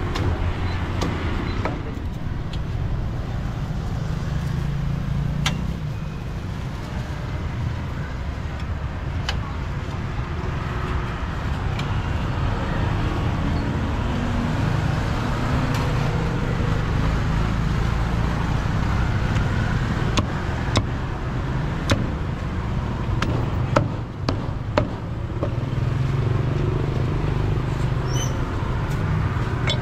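Street traffic: motorbikes and cars running past steadily, the engine rumble swelling now and then, with scattered sharp clicks and knocks over it.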